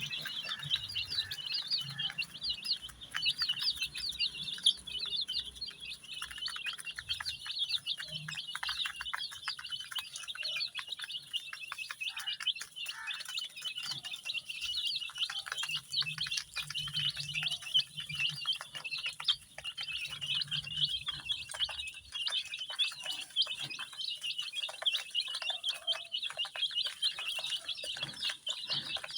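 A flock of baby chicks cheeping continuously, many high-pitched peeps overlapping densely.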